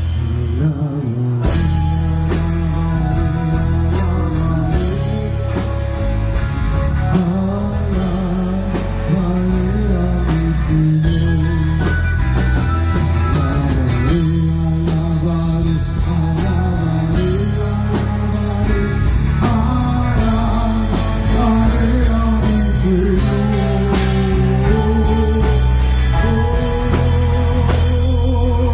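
A band playing a rock-style Christian worship song, with a singer over full drums and bass.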